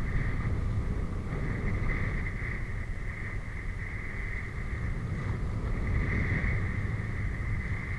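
A steady low rumble with a constant high hum running over it, like a motor running.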